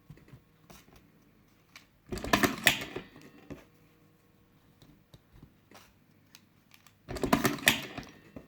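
Top-O-Matic lever cigarette-filling machine being worked: two bursts of rapid mechanical clicking, each about a second long and about five seconds apart, with a few faint single clicks between.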